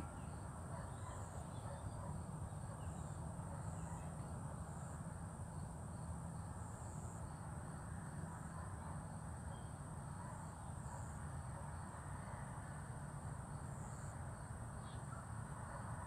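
Outdoor dawn ambience: a steady low rumble with a continuous high, thin drone of insects above it.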